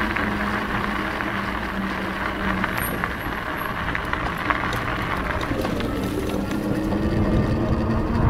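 Wind rushing and buffeting over a camera's built-in microphone during an e-bike ride. A steady low hum drops away about three seconds in and comes back around five and a half seconds in.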